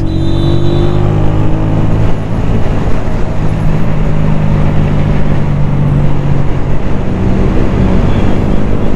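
Honda CG 125's single-cylinder four-stroke engine running steadily while the motorcycle is ridden, a low, even hum over a dense hiss of road and air noise; its note eases slightly in the first second or two.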